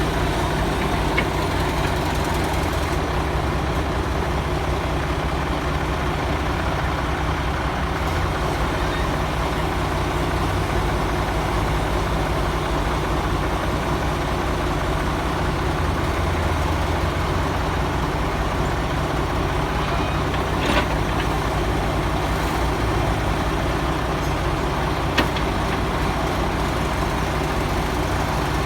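Heavy truck's diesel engine running steadily at low revs, with two brief sharp knocks in the last third.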